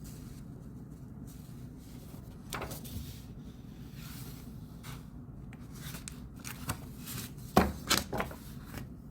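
Desk-side study sounds: scattered rustling and light handling noises over a steady low hum, with two sharp knocks, as of objects set down on a desk, near the end.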